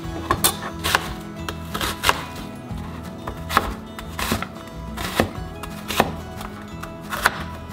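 Chef's knife cutting through a red onion and striking a plastic cutting board, one sharp chop about every half second to a second.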